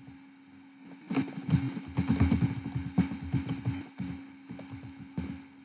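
Computer keyboard typing: a quick, irregular run of key clicks starting about a second in and thinning out after about four seconds, over a faint steady hum.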